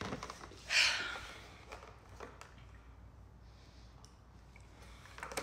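A woman's heavy, breathy exhale about a second in, out of breath after dancing, followed by near quiet with a few faint clicks.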